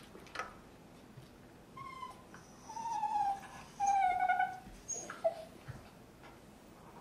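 Standard poodle whining: three high, drawn-out whimpers in a row a couple of seconds in, the last two the longest.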